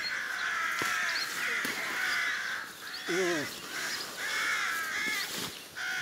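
Crows cawing repeatedly, with a few sharp clicks and snaps of willow branches being piled onto a heap.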